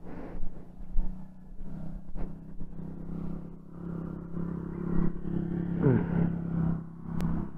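Honda Zoomer X scooter's single-cylinder engine idling steadily, with a few short clicks and a brief falling tone about six seconds in.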